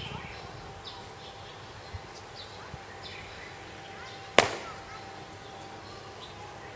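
A single sharp smack a little over four seconds in: the fist dropping into the open palm as the raised foot stamps down, the forceful close of the Chen-style taiji move 'Buddha's Warrior Attendant Pounds Mortar'.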